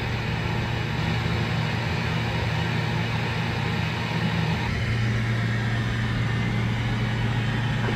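CNC vertical machining center running with a steady low hum, its axes jogging the tilting rotary table under the spindle; the tone shifts slightly about five seconds in as the table moves.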